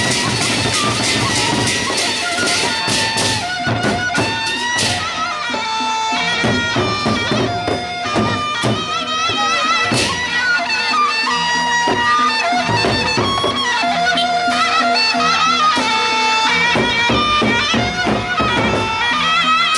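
Gendang beleq ensemble playing: a reedy, wavering wind melody over drums and cymbals, with dense rapid drum and cymbal strokes in the first few seconds.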